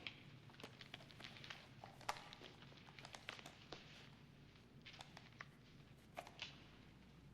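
Faint, scattered light clicks and handling noises from a revolver being handled before firing.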